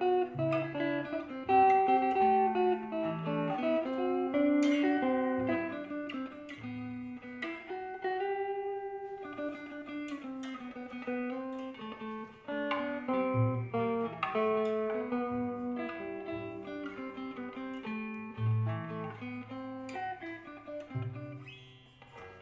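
Improvised guitar playing: a run of plucked single notes over low bass notes.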